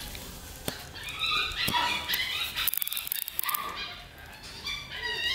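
Puppy whining in several short, high-pitched whimpers and yelps.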